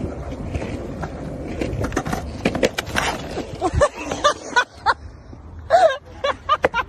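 Skateboard wheels rolling on asphalt, a steady rumble, then a clatter of sharp knocks from the board about two and a half seconds in, mixed with a person's voice crying out.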